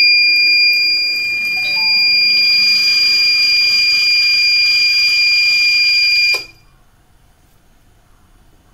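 Electronic buzzer of a water-leak detector sounding one steady high tone, the alarm that water has been detected in the model ship's hull. Beneath it is a hiss of water being pumped. It cuts off suddenly about six and a half seconds in.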